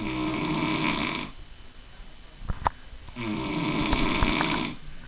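A sleeper snoring: two snores, each lasting about a second and a half, about three seconds apart, with a couple of short clicks in the pause between them.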